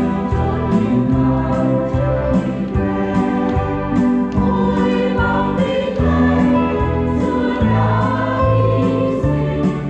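Church choir singing a Vietnamese Catholic hymn in praise of the saints, a steady flow of sustained sung notes.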